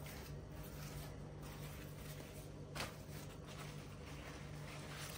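Faint, soft rustling of thin cooked yufka sheets as hands lift and spread them out on a cloth, with one slightly louder rustle about three seconds in. A faint steady low hum runs beneath.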